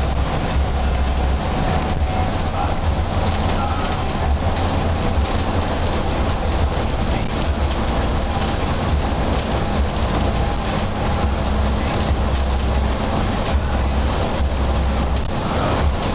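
Intercity bus cruising at speed, heard from inside the cabin: a steady engine drone and road rumble, heavy in the low end, with a faint steady hum above it.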